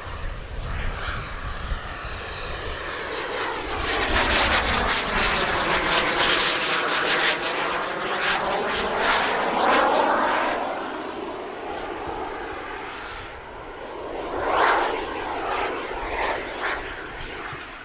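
Twin jet turbines of a Skymaster A-10 Warthog scale model jet rushing past with a sweeping, phasing whoosh. The noise swells to its loudest between about four and ten seconds in, fades as the model climbs away, then swells briefly again near the end.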